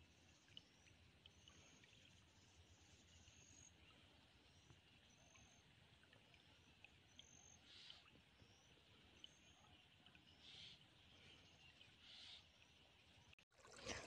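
Near silence: faint outdoor ambience with faint, short, high chirps repeating about once a second.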